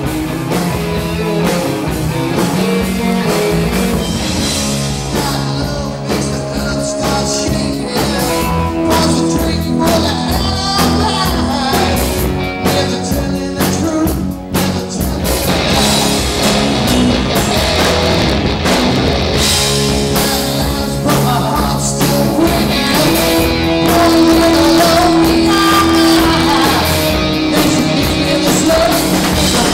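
A rock band playing live, with electric guitars, bass guitar and drum kit. The recording sounds muffled.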